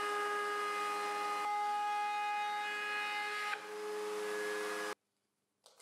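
Table-mounted router with a 90-degree V-groove bit running and cutting a groove in a tough HPL laminate panel as it is pushed along the fence. It is a steady whine of several tones over a hiss, and it cuts off suddenly about five seconds in.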